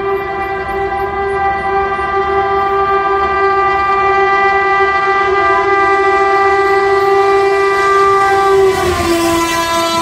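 WAP-7 electric locomotive's horn sounding one long, shrill, unbroken blast as the train approaches. Its pitch drops a little near the end as the locomotive passes, and the rush of the passing coaches rises under it.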